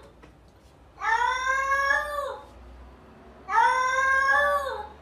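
Domestic cat meowing: two long, drawn-out meows, each about a second and a half, the pitch rising slightly and then dropping at the end.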